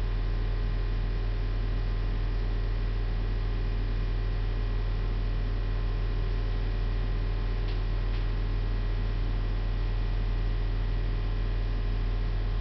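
Steady electrical mains hum under a low hiss, with two faint clicks a little past halfway.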